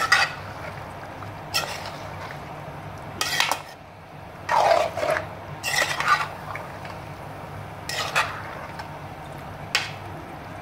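A metal spoon stirring sliced ridge gourd in a metal karahi to fry it, with irregular scrapes and clinks against the pan. A low steady hum runs underneath.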